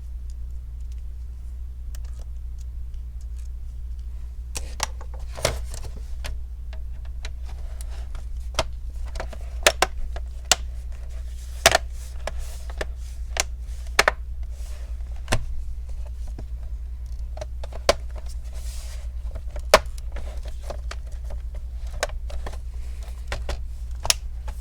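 Irregular small sharp clicks and taps, starting about four seconds in, from screws, a screwdriver and plastic laptop parts being handled during reassembly, over a steady low hum.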